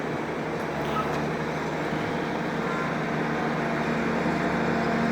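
A heavy vehicle's engine running steadily with a low hum, getting slightly louder toward the end.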